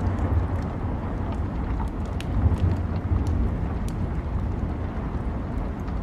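Steady rain with a continuous low rumble underneath, and a wood fire crackling: sharp pops at irregular moments.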